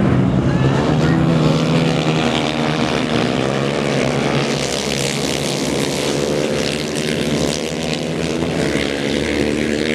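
A pack of racing motorcycles on an ice track, several engines running hard at once, their pitch rising and falling as the riders take a corner and pass by. A hiss joins about halfway through as the bikes sweep past close by.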